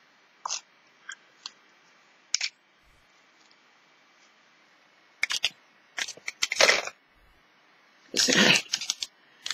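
Small plastic Mini Brands miniatures being handled and put away into a storage box: a few light clicks, then three louder bursts of rattling and rustling in the second half.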